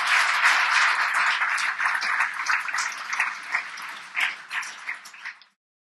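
Audience applauding, the clapping thinning to scattered claps before it cuts off abruptly near the end.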